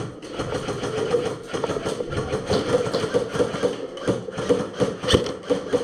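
Airsoft electric guns firing quick repeated shots, the motor and gearbox clacking several times a second, with two sharper, louder cracks near the end.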